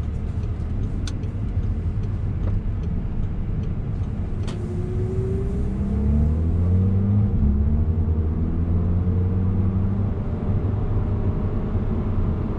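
Cabin sound of a 2011 Audi TT Quattro's 2.0 TFSI turbocharged four-cylinder engine pulling the car along, heard with road noise from inside the car. A few sharp ticks come near the start, and about four seconds in the engine note rises as the car accelerates, then stays louder.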